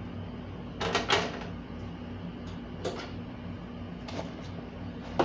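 A few light knocks and clatters of kitchenware being handled at a counter, two close together about a second in and the sharpest near the end, over a steady low hum.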